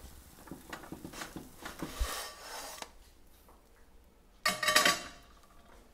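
Plastic spatula scraping and tapping against a nonstick frying pan as it works under a toasting egg-coated tortilla: light, scattered scrapes. About four and a half seconds in, a short, much louder burst of noise.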